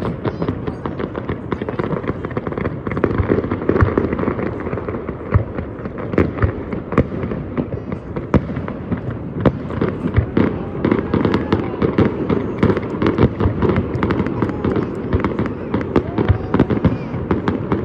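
Fireworks going off without pause: a dense barrage of overlapping bangs and crackles.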